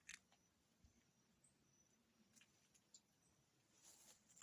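Near silence: quiet outdoor room tone with a few faint, short ticks.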